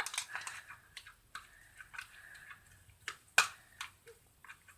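A pen stirring stiff homemade glue-and-salt slime in a measuring cup: irregular sticky squelches and small clicks, with one sharper knock about three and a half seconds in.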